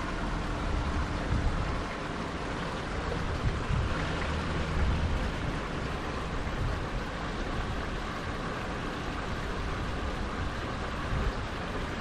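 Spring water spouting from several pipes in a concrete wall and splashing into a stone basin, running steadily, with a low rumble swelling a few seconds in.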